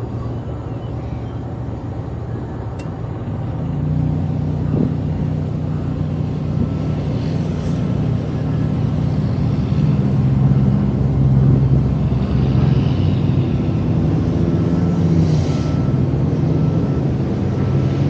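A large engine running steadily, growing louder about four seconds in, its pitch shifting slightly as it goes.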